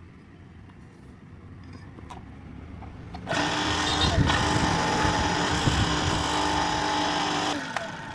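Electric water pump motor starting suddenly about three seconds in, running with a steady hum and whir for about four seconds, then switched off abruptly.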